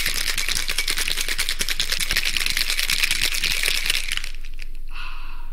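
Ice rattling in a cocktail shaker being shaken hard, a fast, even clatter that gives way about four seconds in to a quieter, steadier sound.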